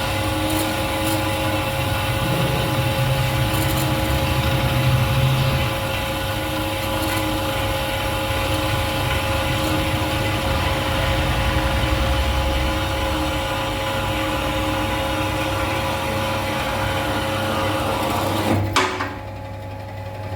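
Angular swivel metal-cutting band saw sawing through a metal workpiece: a steady whine with a continuous grinding rasp. Near the end a sharp knock, and the cutting noise drops away to a low machine hum as the cut finishes.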